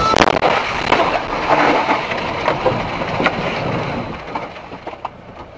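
A vehicle collision: a sharp bang just after the start, then road and vehicle noise with scattered knocks that dies down after about four seconds.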